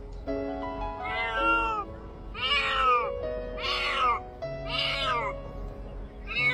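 A domestic cat meowing about five times in a row, each cry rising and then falling in pitch: distress cries from a cat in the water. Background music plays underneath.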